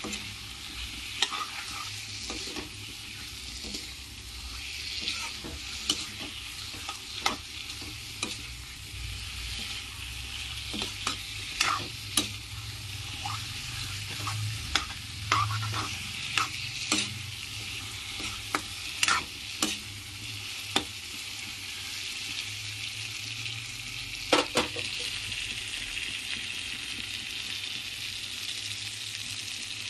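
Chicken pieces in spiced masala sizzling in a metal wok with a steady frying hiss, while a metal spatula scrapes and clacks against the pan at irregular intervals as the meat is stirred and turned.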